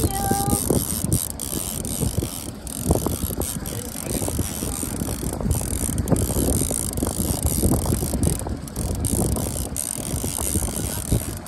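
Fishing reel being cranked, its gears giving a dense run of irregular clicks as a hooked fish is reeled in, with wind buffeting the microphone.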